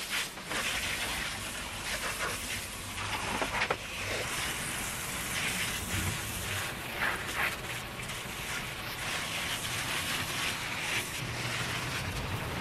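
Garden hose spray nozzle jetting water onto tiled floor and a glass sliding door: a steady hissing spray and splatter, with a few louder splashes.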